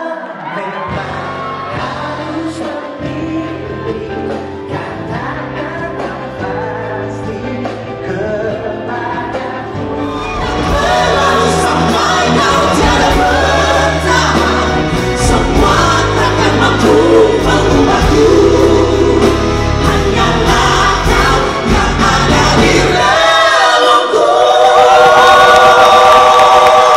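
Live pop ballad played by a band with several singers. The music grows fuller and louder about ten seconds in and ends on a held vocal harmony.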